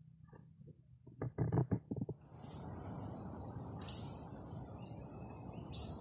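Forest ambience: a steady rustling hiss with repeated short, high chirping calls every half second to a second, starting about two seconds in. A few brief knocks come just before the chirps begin.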